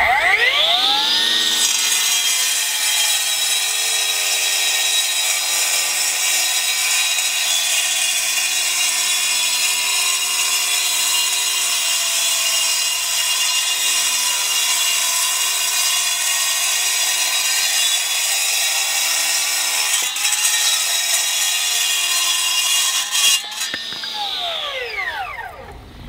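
Milwaukee M18 Fuel 9-inch cordless cutoff saw, fitted with a Roc Crusher Supreme segmented diamond blade, wet-cutting through a concrete paver. The motor winds up with a rising whine, grinds steadily through the slab, and winds down with a falling whine near the end.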